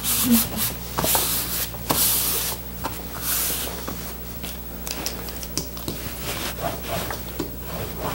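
Hands sweeping and rubbing over two freshly glued sheets of vinyl tarp, pressing the layers together to push the air out: a series of swishing strokes, loudest in the first few seconds and softer after.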